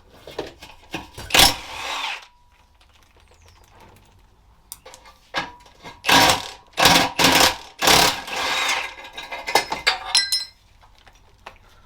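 Short bursts of a power tool working on exhaust clamp nuts, twice near the start and then several in a row, followed by a few sharp metallic clinks.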